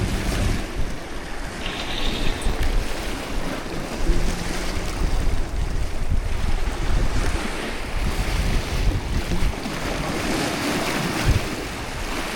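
Sea waves washing and wind buffeting the microphone in uneven gusts.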